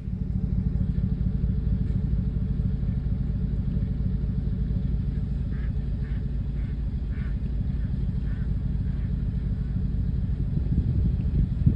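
A flock of ducks overhead, about seven short quacking calls in a row midway through, over a steady low rumble that is the loudest sound throughout.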